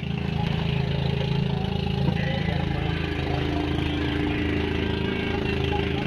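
Small boat engine of a motorized outrigger fishing boat running steadily, with a second, higher engine note joining about two and a half seconds in.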